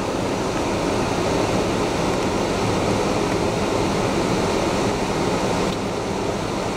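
Steady rushing noise over a low engine hum, heard from inside a four-wheel-drive vehicle on a flooded mud trail.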